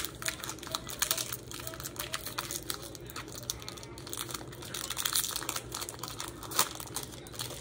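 Foil booster-pack wrappers crinkling and trading cards being handled: an irregular run of crackles and flicks.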